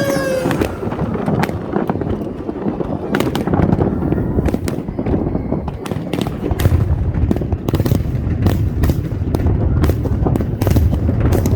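Aerial fireworks going off one after another: many sharp cracks and bangs over a continuous low rumble, which grows heavier about halfway through.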